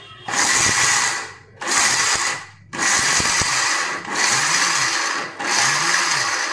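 Electric mixer grinder with a small steel jar grinding cashews into powder, run in about six short bursts of roughly a second each with brief pauses between, switched off and on again rather than run continuously.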